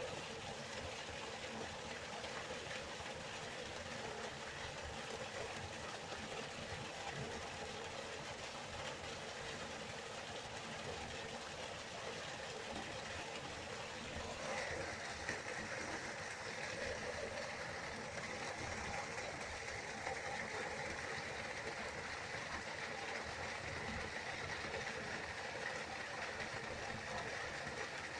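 River water flowing steadily. About halfway through the sound changes suddenly and the water takes on a brighter, higher hiss.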